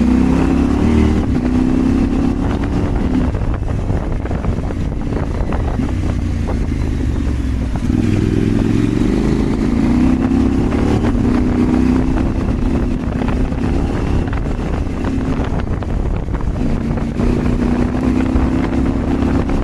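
Adventure motorcycle's parallel-twin engine pulling off-road, the throttle opening and closing. It is strong at the start, eases off a few seconds in, opens up again about eight seconds in, and again near the end.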